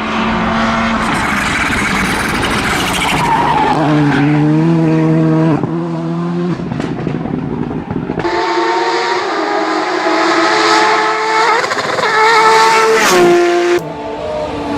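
Rally cars driven hard on gravel: engines revving up and dropping back between gear changes over the hiss of loose gravel and tyres. The sound changes abruptly twice, about eight and a half seconds in and near the end, as one car's run gives way to another's.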